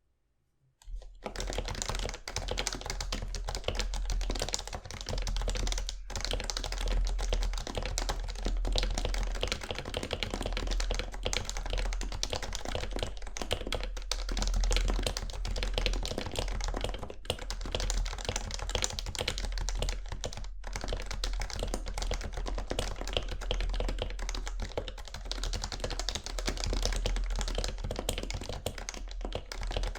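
Continuous typing on a PFU Happy Hacking Keyboard Professional 2 with 45 g Topre switches, its slider rails lubed and the case dampened with foam: a dense stream of keystrokes starting about a second in, with a couple of brief pauses.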